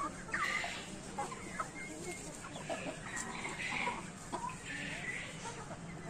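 A flock of chickens clucking, many short calls overlapping one another.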